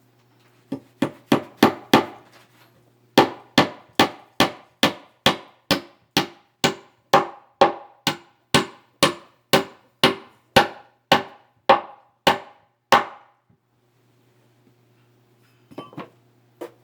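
Hammer striking wood: a quick run of about five blows, a short pause, then about twenty evenly spaced blows at roughly two a second. A couple of light knocks come near the end.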